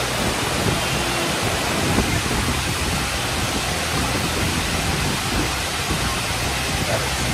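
Waterfall cascading down rock ledges: a steady, even rush of falling water.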